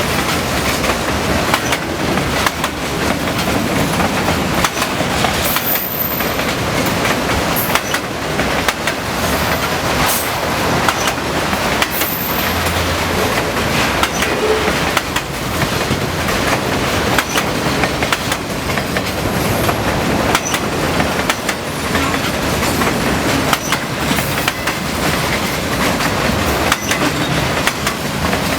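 EJ&E train rolling steadily past, its wheels clattering over rail joints, with a couple of brief high-pitched wheel squeals.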